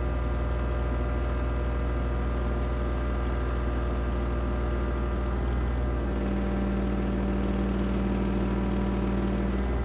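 An engine running steadily, its note shifting about six seconds in.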